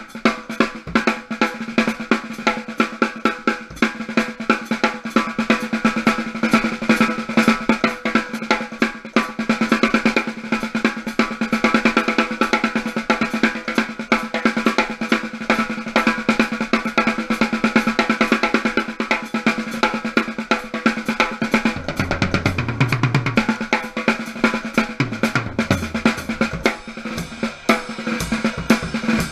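Drum kit played at a fast, dense pace, mostly snare strokes with bass drum, heard through a GoPro Hero 3's microphone inside its sealed watertight housing. Some lower drum hits come in about two-thirds of the way through.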